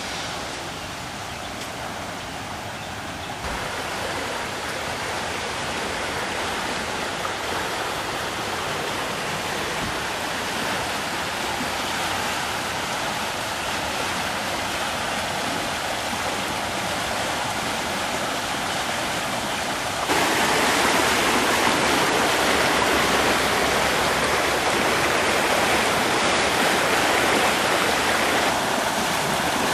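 A swollen creek in high water rushing and churning past, a steady noisy rush of flowing water. It grows louder about three seconds in and again about two-thirds of the way through, easing slightly near the end.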